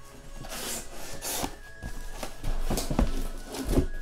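Cardboard shipping case being handled open: flaps and cardboard scraping and rustling, with two dull thumps about three seconds in and near the end as the sealed card boxes inside are moved.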